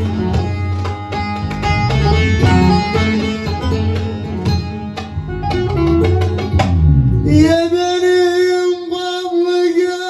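Bağlama (long-necked Turkish saz) playing a fast, busy instrumental passage over a low accompaniment. About seven and a half seconds in, a man's voice comes in singing one long held note over the saz.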